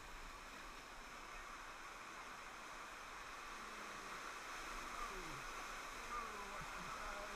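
Rushing, churning water of a water-park river ride's rapids: a steady hiss that grows slightly louder.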